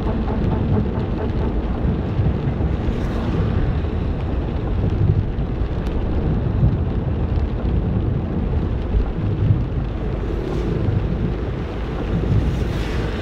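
Rain falling steadily, with a continuous low rumble.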